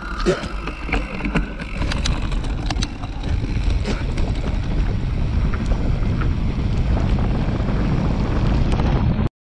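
Heavy wind buffeting on the camera microphone with scattered clicks and rattles from the moving mountain bike. It cuts off suddenly near the end.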